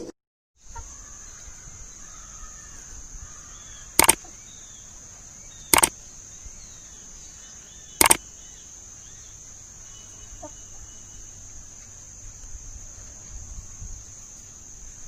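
Outdoor ambience with a steady high-pitched buzz and faint bird chirps, broken by three sharp knocks a couple of seconds apart.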